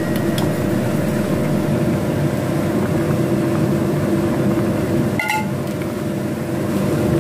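Sayur lodeh, a coconut-milk vegetable stew, boiling hard in a ceramic dish on a gas stove: a steady bubbling rumble, with a brief clink about five seconds in.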